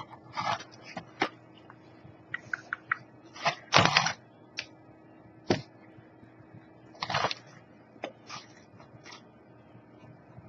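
Plastic snack packaging being handled: irregular crinkles and clicks, the loudest about four and seven seconds in.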